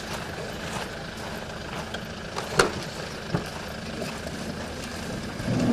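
A vehicle engine idling with a steady hum, with two sharp clicks about two and a half and three and a half seconds in.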